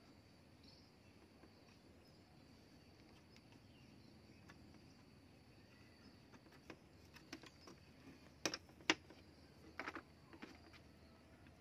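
Near-quiet background with a faint steady high-pitched hum, then a handful of light clicks and knocks in the second half, the sharpest two close together: hands handling the wooden spear-gun stock, barrel and its rubber band on a table.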